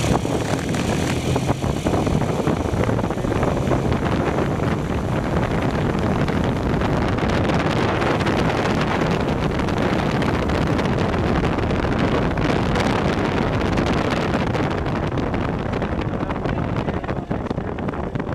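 1955 MG TF's four-cylinder engine running as the car drives along, mixed with wind rushing over the microphone. The noise is steady and eases a little near the end.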